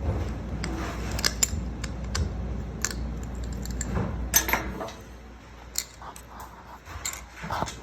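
Small metal carburetor parts clinking and rattling against each other as they are handled and set into an ultrasonic cleaner: a string of scattered sharp clicks and light metallic jangles.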